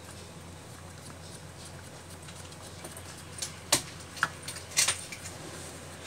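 A few sharp metallic clicks and clinks, the loudest about three and a half and five seconds in, from a hand working the parts inside the element opening of an electric storage water heater.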